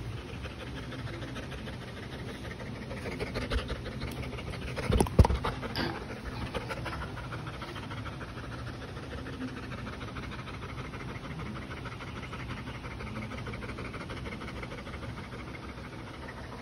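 A yellow Labrador retriever panting rapidly and steadily with its tongue out. Between about three and six seconds in there is a short run of louder knocks and rustles, the loudest about five seconds in.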